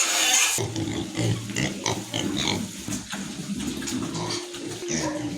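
Pigs grunting in a pen, a low irregular rumble with scattered clicks. A loud hiss cuts off suddenly about half a second in.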